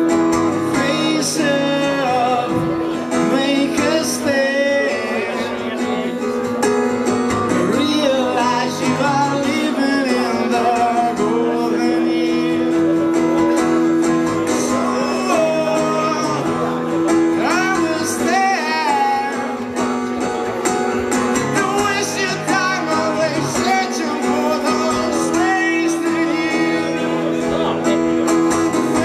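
Live solo acoustic song: an acoustic guitar played in held chords, with a man singing over it in long, wavering vocal lines.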